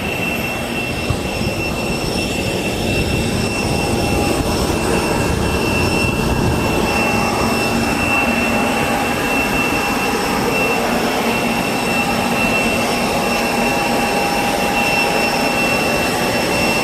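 Jet airliner cabin noise: engines and cabin air running steadily, with a continuous high whine over a low rumble.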